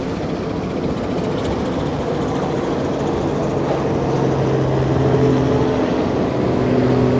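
Motorboat engine running with a steady drone over wind and water noise, growing gradually louder as the boat approaches.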